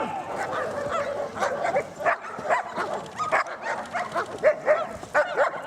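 A dog giving rapid, repeated short yelping barks and whines.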